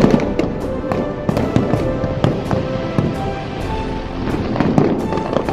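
Fireworks exploding in a rapid string of bangs and crackles, the loudest bang at the very start, over music playing in the background.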